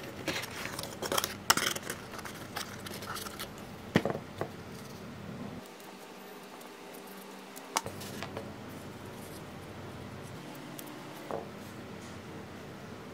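Small cardboard box handled and opened by hand: card rustling and scraping for the first three or four seconds, with a few sharp taps and clicks spaced through the rest.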